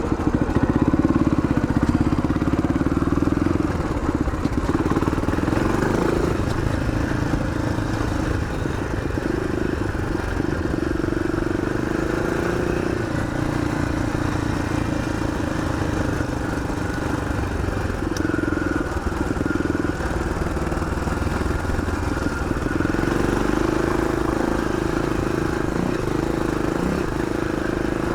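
1981 Yamaha XT500's single-cylinder four-stroke engine running steadily while riding, its pitch dipping and rising several times with throttle changes.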